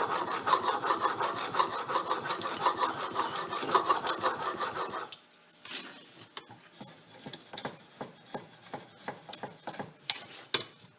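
Steel chisel in a honing guide stroked back and forth on an oiled honing stone, a rhythmic rasping scrape. About five seconds in the stroking stops, leaving only faint scrapes and small clicks.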